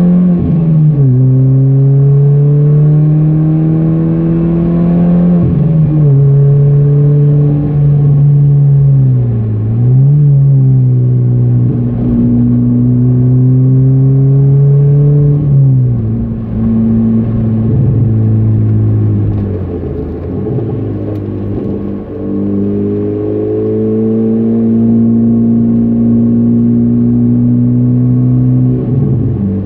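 Car engine heard from inside the cabin during a hard lap, pulling up through the revs with sharp drops in pitch at the gear changes, near the start and about five seconds in. Around the middle the revs fall away for several seconds as the car slows for a corner, then build steadily again, with another upshift near the end.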